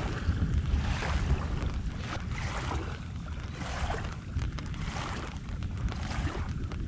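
Gusty wind buffeting the microphone with a heavy low rumble, over river waves lapping against the shore in surges about once a second, as a thunderstorm moves in.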